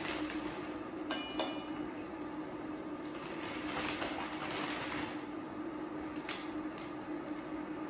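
Plastic bag crinkling in several bursts as snow crab legs are taken out and laid into an electric hot pot, with a couple of sharp clicks of shell against the pot about a second in. A steady low hum sits underneath.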